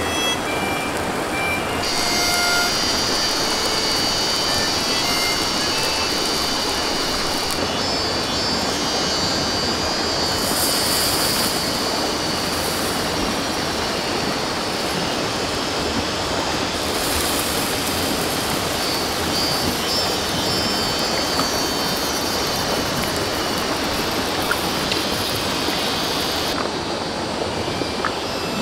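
Beef steak sizzling on a fire-heated river stone: a steady hiss of fat and juices frying against the hot rock.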